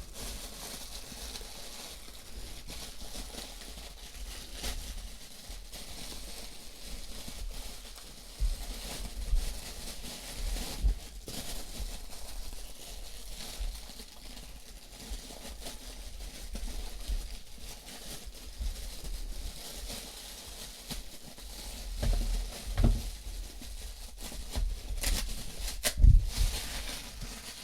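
Parcel packaging being handled and opened: a steady rustle and crinkle of plastic wrapping, with scattered tearing, small knocks and a few louder bumps near the end.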